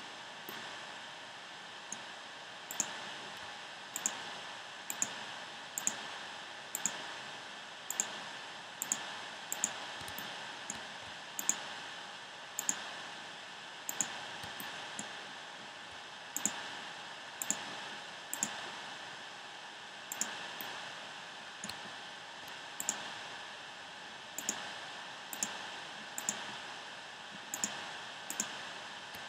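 Irregular single clicks from operating a computer's mouse or keys, about one a second, over a steady low hiss.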